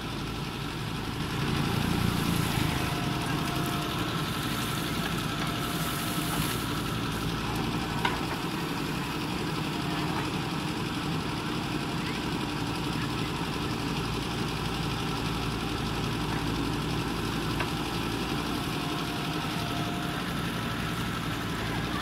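JCB 3DX backhoe loader's diesel engine running steadily as the backhoe digs and swings soil. It gets louder about two seconds in, and there is a single sharp knock about eight seconds in.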